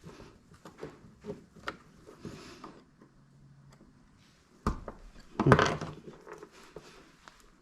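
Light clicks and rubbing, then two louder knocks about five seconds in, as a soldered EC5 terminal is pushed into its plastic connector housing until it locks in place.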